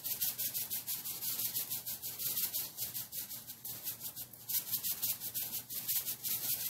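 Salt being shaken from a plastic shaker bottle, the grains rattling in rapid, even shakes.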